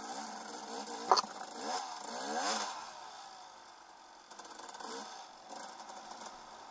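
2008 KTM 300 EXC two-stroke engine revving in two rising surges as the bike pulls away from a near standstill, then settling lower. A sharp knock sounds about a second in.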